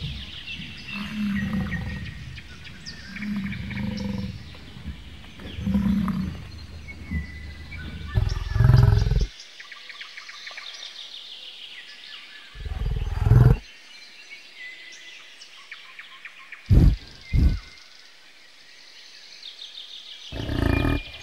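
American bison bellowing: a run of low grunting calls at first, then a series of louder, deep bellows, two of them short and close together, with birds chirping faintly in the background.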